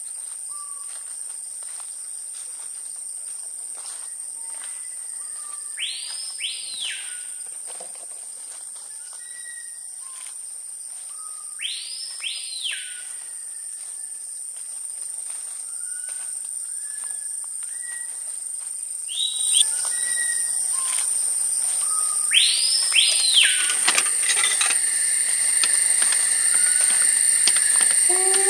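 Insects droning steadily at a high pitch, with bird calls over them: a call that sweeps up and back down in quick loops, heard three times, and short whistles in between. The ambience grows busier and louder near the end.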